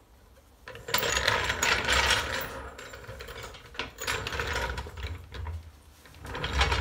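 A steel trolley floor jack rolled across a concrete floor, its casters and frame rattling. The rattling starts about a second in, eases off in the middle and comes up loudly again near the end.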